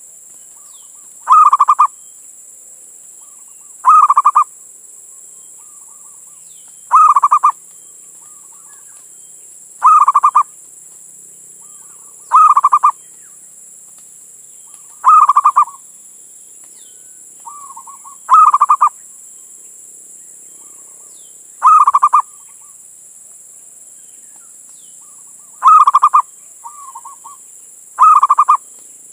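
Male zebra dove (perkutut) cooing: a short, loud, rapid call repeated about every three seconds, ten times, with a few softer coos in between.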